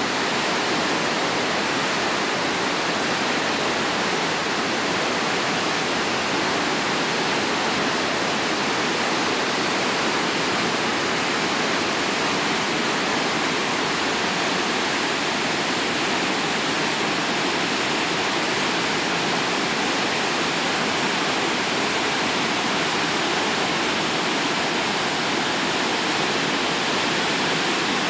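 Whitewater of the Uruguay River rushing through rapids and small falls in a narrow rocky gorge: a steady, even rush of water that never lets up.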